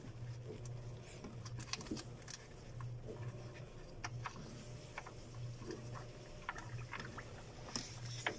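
Small scattered clicks and scrapes of a gloved hand unscrewing a car's radiator drain plug, over a steady low hum, with a louder cluster of clicks near the end.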